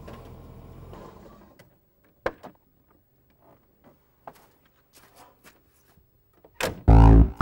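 A car engine running steadily, then switched off about a second in; after that, a few sharp clicks and knocks of the car door being opened and someone climbing out. Loud music cuts in near the end.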